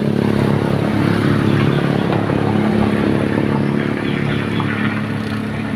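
An engine running steadily at idle, a low even hum that holds the same pitch throughout.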